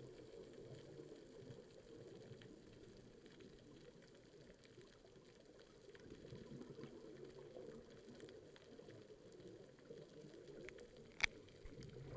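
Faint, muffled underwater bubbling from a scuba diver's exhaled air, heard through the camera housing, with one sharp click near the end.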